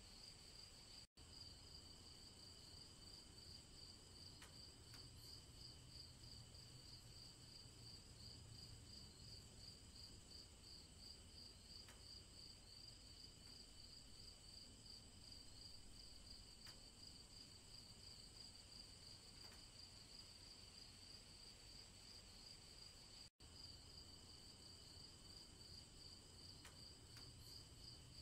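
Faint chorus of insects trilling in the woods, a steady, fast-pulsing high chirr. It cuts out to total silence for an instant twice, about a second in and near the end.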